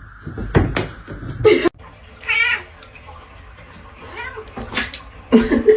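Domestic cat meowing: a wavering, high meow a little over two seconds in, with more short cries near the end.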